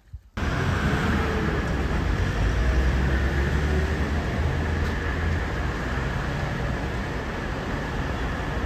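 Steady rumble and noise of a vehicle under way, cutting in abruptly just after the start and holding level.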